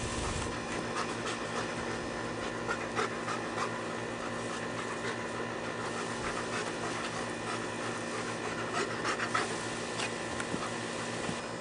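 A dog panting while playing, with a few short clicks, most of them near the end.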